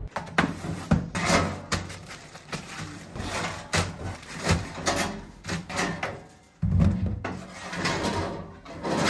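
Steel parcel-drop hopper being pulled open and pushed shut by its handle, with parcels sliding and knocking against the metal: an irregular run of clunks and scrapes.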